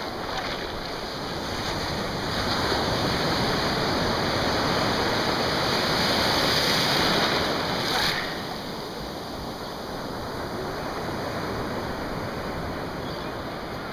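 Ocean surf breaking in the shallows, whitewater rushing in close around the microphone. It is louder for the first half, then drops suddenly about eight seconds in to a softer wash.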